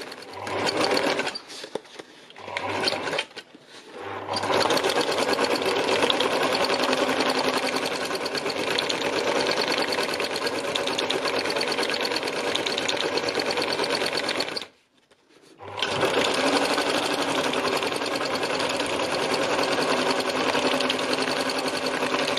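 Sewing machine doing free machine embroidery through paper, stitching under a darning foot. It starts with a few short stop-start bursts, then runs steadily for long stretches, stopping for about a second partway through before running on.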